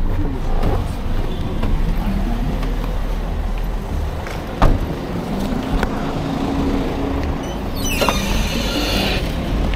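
Car engine idling amid street traffic, with a sharp knock about halfway through and a brief scraping rustle near the end as a suitcase is pulled from the open trunk.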